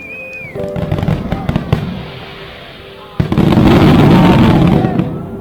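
Fireworks crackling, then a sudden loud burst about three seconds in that runs on as a dense wash of crackles for nearly two seconds.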